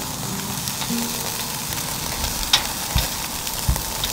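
Frenched lamb rack chops sizzling on a wire grate over a charcoal fire: a steady hiss with a few sharp pops of fat.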